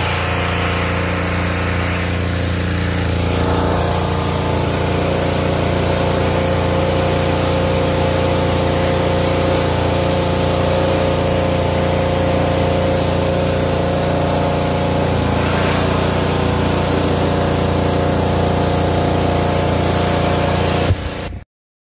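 Pressure washer running steadily, a constant machine drone under the hiss of its water jet spraying against house siding; the sound cuts off abruptly near the end.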